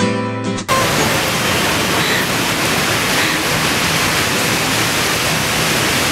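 Strummed acoustic guitar music cuts off abruptly less than a second in, giving way to a steady, even rush of outdoor background noise.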